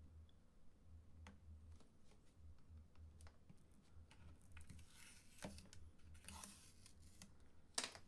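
Faint scratching and peeling rasps with scattered small clicks as a laptop's adhesive rubber foot strip is pried loose and pulled away from the plastic base, then one sharper click just before the end.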